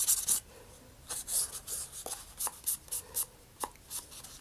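Short scratchy rubbing strokes on a sealed balsa wood rocket fin, a few a second and uneven, with a light sharp knock about three and a half seconds in.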